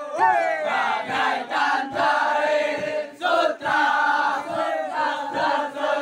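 A large group of male army cadets chanting and shouting together in unison, in short rhythmic phrases broken by brief pauses.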